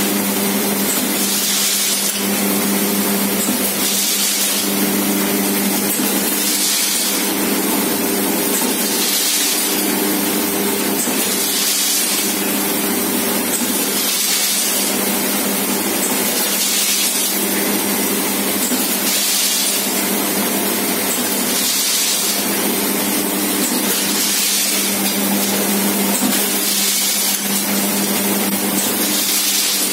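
Pasta pouch packing machine running, with a steady hum and a short hiss that comes back regularly about every two and a half seconds as it cycles.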